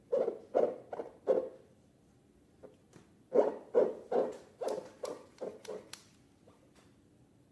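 Slime being squished and worked by hand: soft wet squelches about two or three a second, a short run at the start and a longer one from about three seconds in, with a few sharp clicks among the later squelches.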